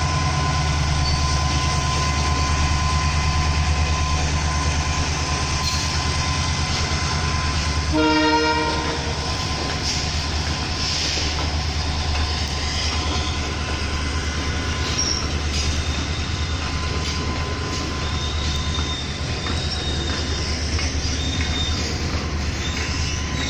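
Twin WDG4 (EMD GT46MAC) diesel locomotives accelerating a loaded goods train: a loud steady engine drone with a high turbocharger whine, the 'jet engine sound', and a short horn blast about eight seconds in. After about twelve seconds the engine sound fades, and the loaded wagons roll past with wheel clatter and faint wheel squeals.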